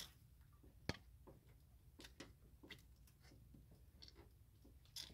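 Faint, irregular clicks and light knocks, with one sharper click about a second in, as gloved hands twist and pull at a stiff rubber coolant hose to work it off the EGR valve assembly.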